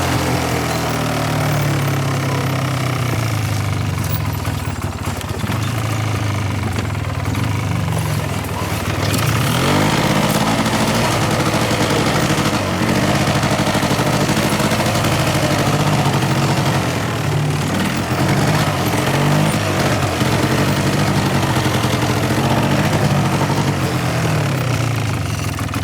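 A small vehicle's engine running as it is driven along, its pitch rising and falling with speed. It grows louder about ten seconds in.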